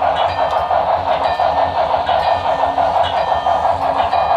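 HO-scale model freight train running steadily past: the freight cars' wheels on the track, with the onboard sound of the Broadway Limited Texas & Pacific 2-10-4 steam locomotive.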